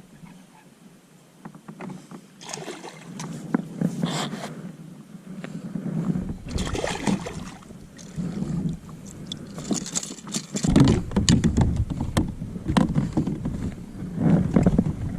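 Water splashing and sloshing in irregular bursts around a fishing kayak, with knocks and scrapes on the hull. A low rumble comes in near the middle.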